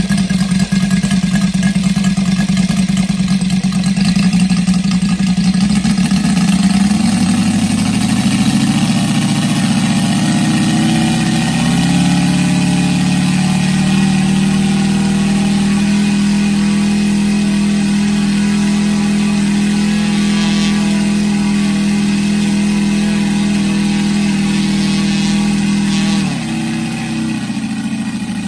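Saito FA-325 five-cylinder four-stroke radial model aircraft engine, converted to petrol with spark ignition and fitted with an exhaust collector ring, running and turning a 20x8 propeller. The revs climb over a few seconds in the first half, hold steady, then drop back near the end.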